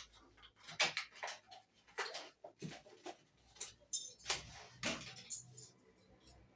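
Irregular small clicks and metallic knocks from hair-clipper blades being handled and taken off their clippers one at a time.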